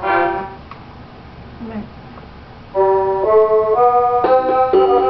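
A child playing a portable electronic keyboard: one note at the start that fades quickly, a short pause, then from about three seconds in a run of held notes, each lasting about half a second.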